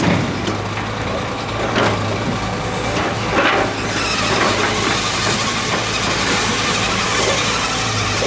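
A machine's engine running steadily with a constant low hum, with a couple of short knocks about two and three and a half seconds in.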